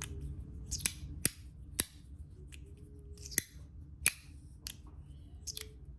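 YEDC Pig magnetic fidget slider being slid back and forth, its magnets snapping the halves into place with about eight sharp, irregularly spaced clicks.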